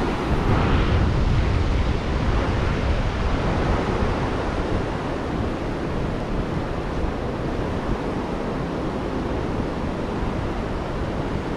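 Ocean surf washing steadily onto a beach, with wind rumbling on the microphone.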